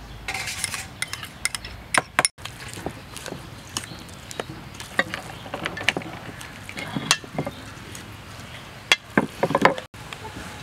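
Metal spoon clinking and scraping against a stainless steel bowl while mixing spring roll filling of shredded carrot, bean sprouts and ground pork, in irregular scattered clicks with short scrapes.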